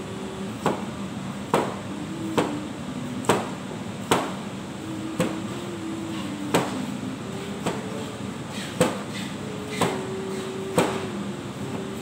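Meat cleaver chopping through a cucumber onto a cutting board: a sharp knock with each slice, about one a second.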